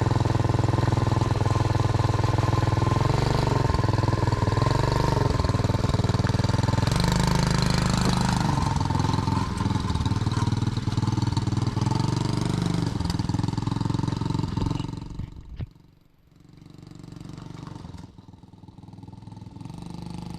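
Small four-wheeler (ATV) engine running, its throttle worked by a remote-controlled servo, with the pitch rising and falling as it is revved. About three-quarters of the way through it drops away sharply, then builds back up gradually.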